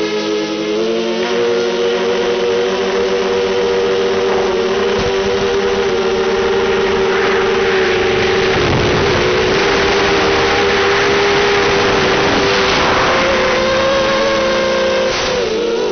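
Drone's motors and propellers whining steadily. The pitch steps up about a second in and dips briefly near the end as the throttle changes, and a rushing noise thickens through the middle during forward flight.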